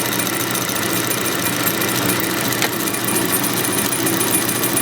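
AtlasUSA AT783 industrial buttonhole sewing machine running at its slow speed, a steady, even mechanical stitching clatter.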